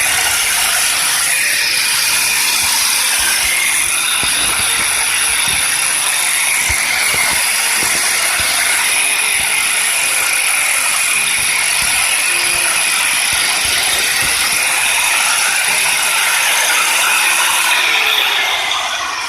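Handheld electric power cutter, fitted with a water feed for wet cutting, running at full speed with no load and giving a steady high whine. It is switched off about 18 seconds in and winds down.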